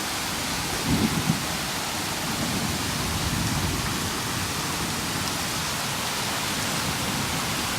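Heavy rain falling steadily in a thunderstorm, a constant hiss, with a few brief low thumps about a second in.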